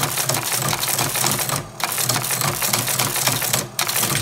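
Teletype Model 15 keyboard being typed on while its printer echoes each character, a fast mechanical clatter of keys, typebars and selector mechanism with two short pauses between words, over the steady hum of the machine's running motor.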